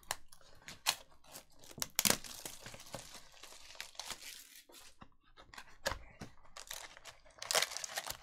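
Plastic shrink-wrap being torn off a cardboard trading card box, crinkling, with a sharp tear about two seconds in. Near the end there is more rustling as the box is opened and the wrapped card packs are pulled out.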